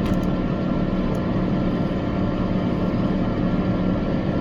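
Tractor engine running steadily at a constant pitch while pulling a muck spreader across a wet field.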